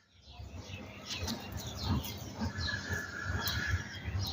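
Small birds chirping in quick, short, falling notes, with one held whistled note a little past halfway, over a low uneven rumble.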